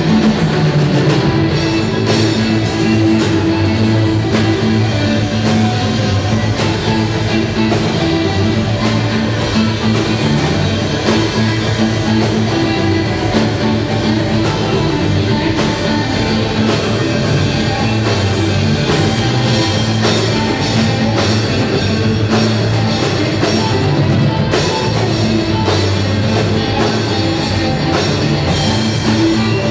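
A live jam-funk band playing a steady groove: electric guitar over a drum kit, with regular drum hits throughout.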